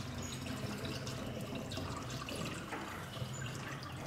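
Liquid poured from a metal pot through a plastic funnel into a plastic bottle, a steady trickle as the bottle fills.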